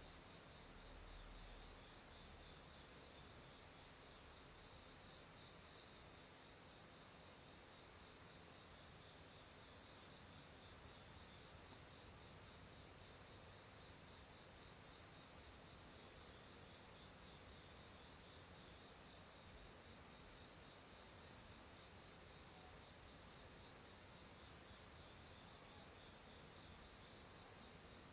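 Faint, steady high-pitched chorus of night-singing insects such as crickets chirping. A few light ticks come about a third of the way in and again later.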